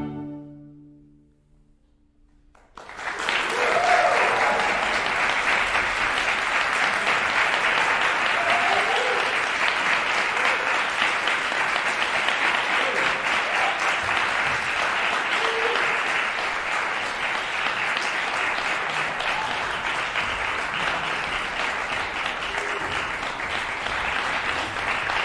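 The string quartet's final chord dies away in the hall's reverberation, followed by a brief hush. About three seconds in, audience applause breaks out and carries on steadily.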